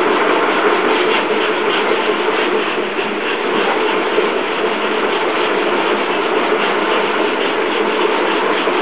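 Dog treadmill running steadily with a dog trotting on the belt: a constant mechanical drone with a faint, regular ticking.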